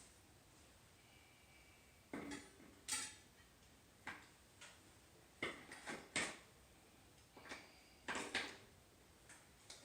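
Scattered light clicks, clinks and knocks of hand tools and bike parts being handled during work on a mountain bike's front wheel, about a dozen short sounds spread unevenly.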